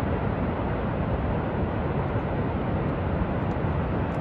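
Steady, even roar of Niagara Falls, a deep rush of falling water with no breaks.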